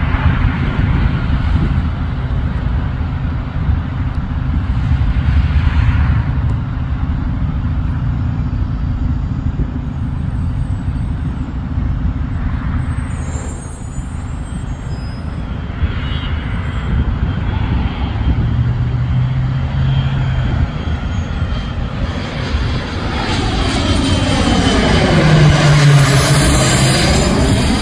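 Steady road traffic rumble and hiss. Near the end a small twin-engine business jet on landing approach passes low overhead: its engine whine swells, with sweeping tones that fall and then rise as it goes over.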